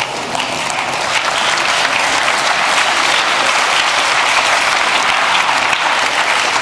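Audience applauding in a large hall, building over the first two seconds and then holding steady.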